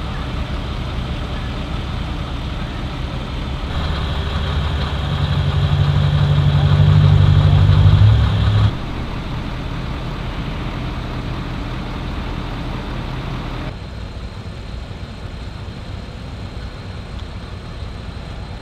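Vehicle engines idling steadily, heard in several spliced takes whose sound changes abruptly every few seconds. The loudest take, about four to nine seconds in, has a deep hum that swells and then cuts off suddenly.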